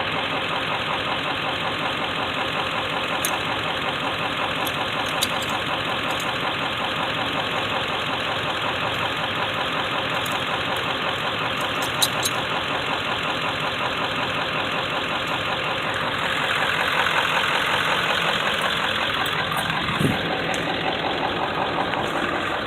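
Truck engine idling steadily, growing a little louder for a few seconds past the middle. A sharp metallic click sounds about twelve seconds in, and a short knock about twenty seconds in.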